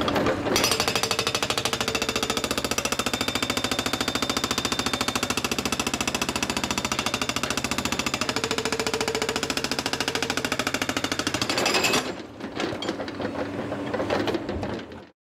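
Epiroc (Atlas Copco) MB 1000 hydraulic breaker on an excavator hammering rock: a rapid, steady stream of blows that stops abruptly about twelve seconds in, followed by quieter, uneven sounds until the audio cuts off near the end.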